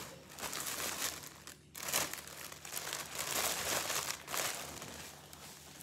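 Plastic packaging crinkling and rustling as clothing is handled and pulled out of a cardboard shipping box. It comes in uneven bouts, with a brief pause a little under two seconds in.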